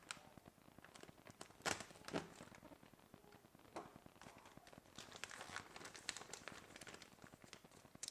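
A packaging bag being cut open with a knife, with quiet crinkling and a few sharp clicks and rustles.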